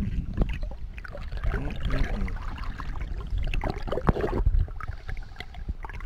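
Water splashing and sloshing with scattered knocks and clicks, as a person crawls through a shallow cave stream.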